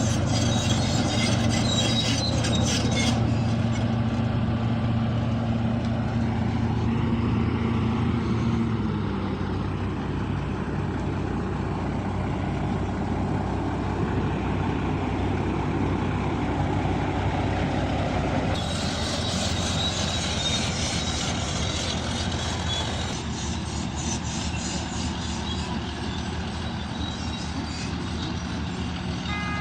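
Bulldozer's diesel engine running steadily, its note dropping a little about a third of the way through, with spells of metallic rattling and clanking near the start and again around the middle.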